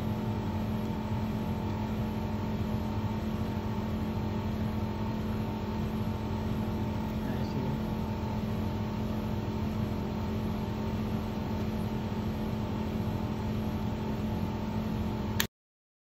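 A steady mechanical hum with a low drone and a fainter higher tone running under it. It cuts off suddenly near the end.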